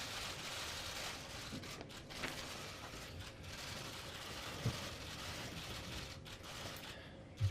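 Steady room hiss with a few scattered faint clicks and rustles.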